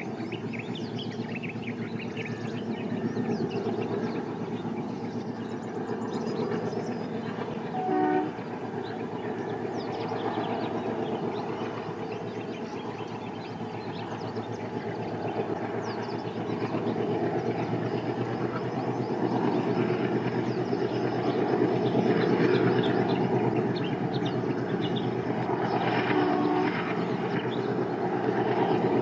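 Steady engine drone of a pair of WDG3A diesel locomotives hauling a passenger train, growing louder in the second half. The locomotive horn gives a brief toot about a third of the way in and a second, slightly longer one near the end.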